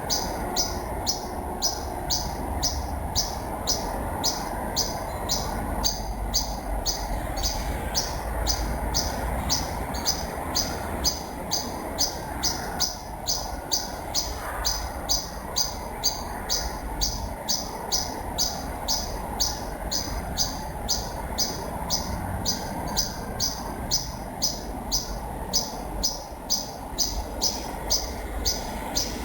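A bird repeating one short, high chirp about twice a second, very evenly, over a steady low rushing background.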